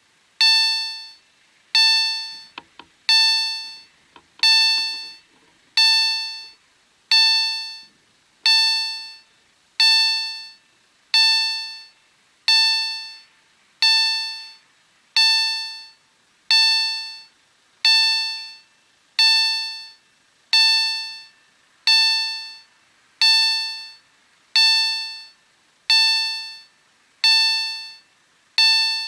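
EHL level-crossing warning bell of an SPA-1 ZWUS crossing system striking about once every 1.3 seconds, each stroke a clear ringing tone that dies away before the next. It signals that the crossing is closed for an approaching train.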